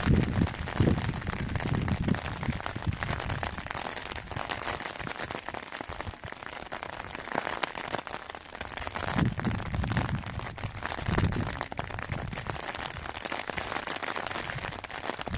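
Steady rain falling and pattering on the ground and nearby surfaces, with a few low rumbling swells near the start and about two-thirds of the way through.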